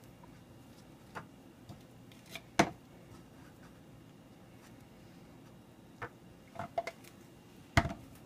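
A butter knife spreading peanut butter on a slice of bread on a plate, heard as a few sparse light clicks and knocks. Two louder knocks come about two and a half seconds in and near the end, where the knife goes back into the peanut butter jar.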